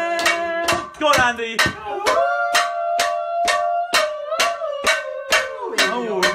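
A knife beaten against a frying pan as a drum, in a steady quick beat of about four strikes a second, with voices singing long held notes over it.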